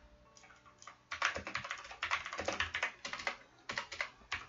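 Typing on a computer keyboard: a quick run of key clicks that picks up about a second in and goes on in bursts with short pauses.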